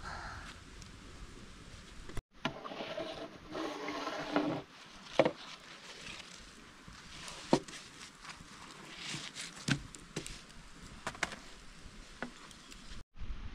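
Scattered sharp wooden knocks and taps of a thin wooden rolling pin working flatbread dough on a wooden board, the loudest about five seconds in.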